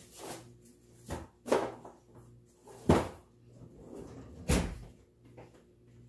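Kitchen drawers and cupboard doors being opened and shut while pot holders are fetched: a series of wooden clunks and bangs, three of them loud, about a second and a half apart.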